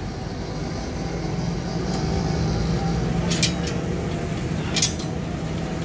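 Steel leaf-spring leaves clinking sharply against each other twice as they are stacked and aligned by hand, over a steady low drone.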